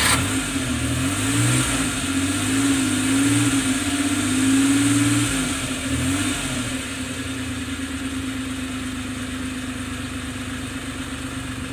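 Multicab's small engine running just after a restart, its speed rising and falling unevenly for about the first six seconds, then settling to a steady idle.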